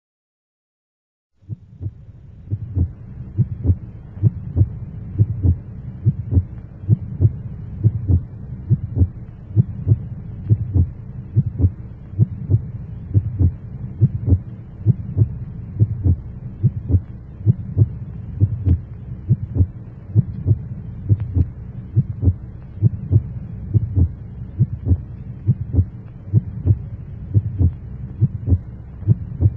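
A steady low hum with fast, even, heartbeat-like thumps, starting about a second and a half in.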